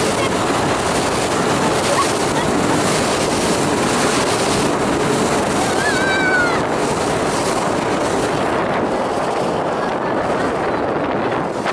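Sessa motorboat running fast at about 40 knots: a loud, steady rush of wind and water past the hull with engine noise underneath. A brief high sound falls in pitch about six seconds in.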